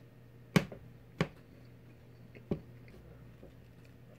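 Three sharp mouth clicks, the first the loudest, while a person chews a mouthful of frosted donut.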